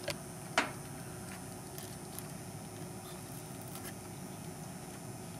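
Two short clicks in the first second, the second louder, then a steady low hum with a few faint ticks, from handling a soldering iron and copper desoldering braid against a circuit board's pins.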